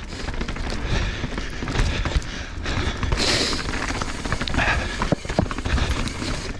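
2021 Evil Insurgent MX full-suspension mountain bike rolling down a rocky dirt singletrack. The tyres rumble over dirt and rock, the bike clatters with many short knocks, and there is a low rumble of wind on the camera.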